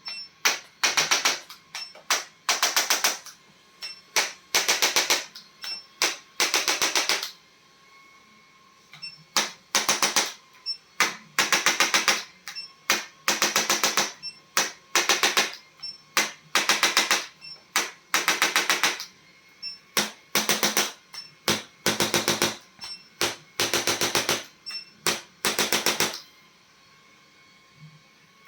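Handheld electric chiropractic adjusting instrument firing short bursts of rapid clicks, often two bursts close together, with brief pauses between them as it is moved along the spine.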